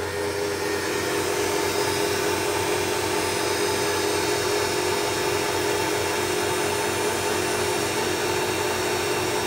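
Belt-driven spindle and drive motor of a CNC-converted Grizzly G0704 benchtop mill, run from a VFD at about 110 Hz. It spins at high speed, around 4,500 rpm, as a steady whine with a couple of steady tones over a hiss. It grows slightly louder over the first second.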